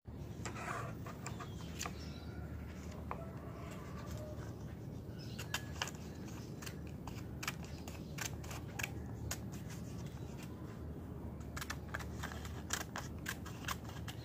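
Homemade wooden scissors snipping through a piece of paper: a run of short, dry clicks and snips, thickest in the last few seconds, over a steady low hum.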